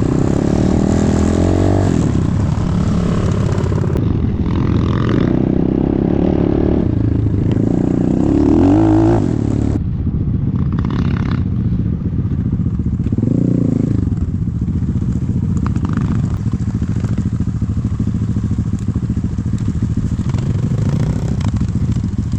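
Enduro dirt bike engine running and revving under load, its pitch rising sharply about eight seconds in and again about thirteen seconds in.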